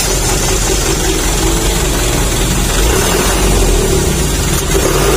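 Hino Dutro diesel truck's exhaust blowing through a 'srigala' wolf-howl exhaust tip held on the muffler outlet, at low revs: a steady, loud howling whistle over the engine's rumble, shrill with a little bass.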